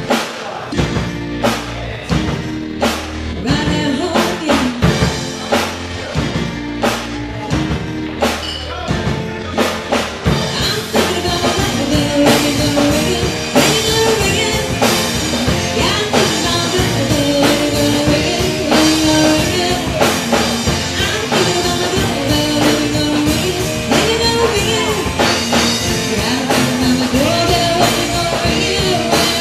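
Rock band playing: about ten seconds of drum-led beat with sharp, regular strokes, then the full band with guitar and singing comes in and carries on.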